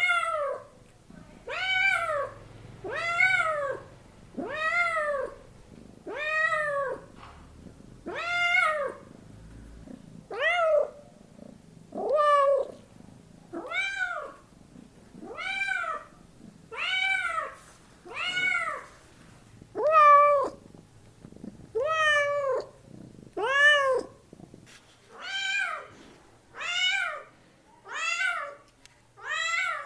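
A domestic cat meowing over and over, about one meow every second and a half. Each meow rises and then falls in pitch.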